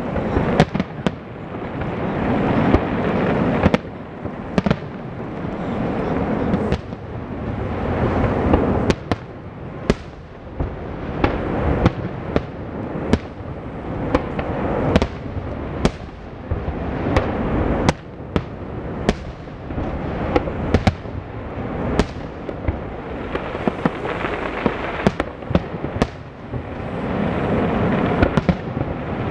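Aerial fireworks display: a rapid, irregular series of sharp shell bursts and bangs over a continuous rumble that swells and fades every few seconds.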